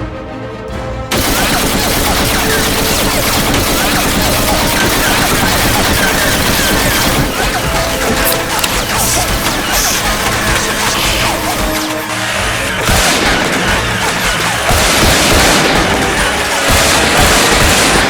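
Background music under a dense battle soundtrack of rapid gunfire and explosions, which starts abruptly about a second in and keeps going.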